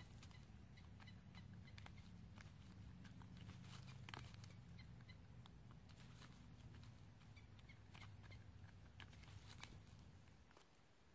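Faint, irregular clicks of chickens pecking kernels from an ear of corn, over a low steady hum.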